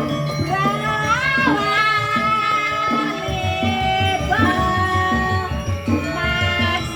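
Traditional music: a high voice singing long notes that slide and bend in pitch, over a low pulsing drum beat that drops out for a moment partway through.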